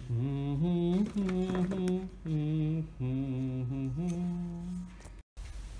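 A man's voice singing a slow, chant-like tune in long held notes that step between a few low pitches. It breaks off abruptly about five seconds in.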